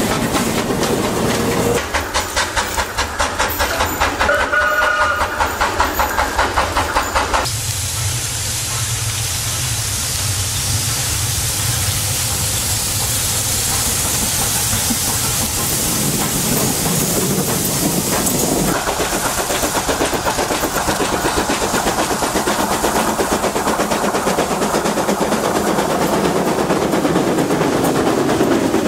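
Steam locomotive 6-015 working a passenger train: steady rhythmic exhaust chuffs, then a long steady hiss of steam from the locomotive, then the carriages rolling past with wheels clattering over the rails.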